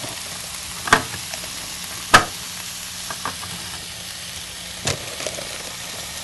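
Ground meat and onion frying in a skillet with a steady sizzle. A few sharp knocks of a chef's knife chopping green bell pepper on a plastic cutting board, the loudest about one, two and five seconds in.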